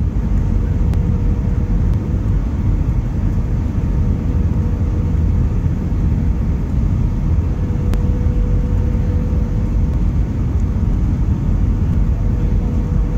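Airbus A320-family jet cabin noise on final approach with flaps extended: a loud, steady low rumble of engines and airflow, with a thin steady hum running through it.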